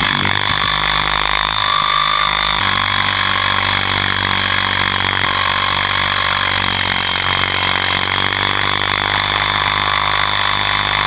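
Align T-Rex RC helicopter's motor and main rotor running steadily under flight power, a high whine over a low hum, heard from the camera mounted on the helicopter itself.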